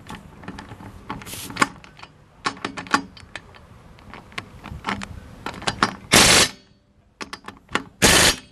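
Metal clinks and knocks of tools and lug nuts being handled, then two short bursts of an impact wrench hammering lug nuts tight, about six seconds in and again near the end. The bursts are the loudest sounds.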